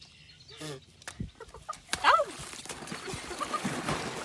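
A person's short startled cry about two seconds in, followed by rough splashing and commotion as a man slips off the bank into the pond while landing a catfish.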